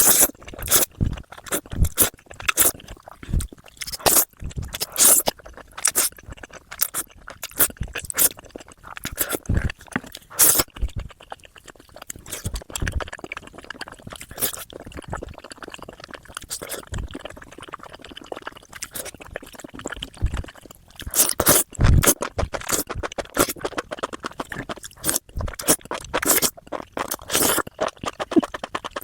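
Close-miked eating sounds: crunchy bites and chewing, heard as many sharp crackling clicks. They are busy at the start, thin out and quieten in the middle, then grow busy again about two-thirds of the way through.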